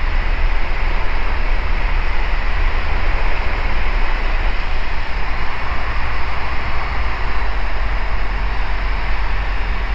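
Ikarus C42B microlight's engine and propeller running steadily on final approach, mixed with a steady rush of wind and a deep rumble.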